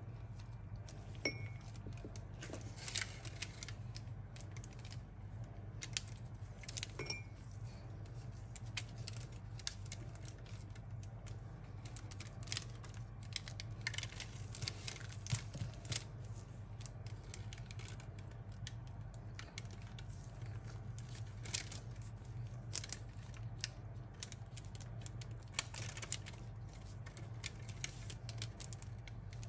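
Irregular crisp rustling and light clicks as spring roll pastry and the parchment paper under it are handled and folded by gloved hands, over a steady low hum.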